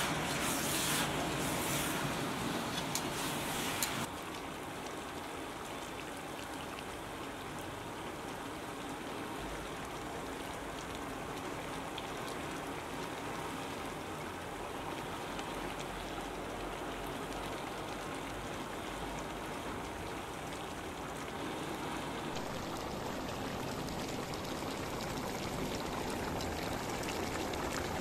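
Steady sizzling and light crackling of food frying in hot oil. The sound changes abruptly about four seconds in and again near the end.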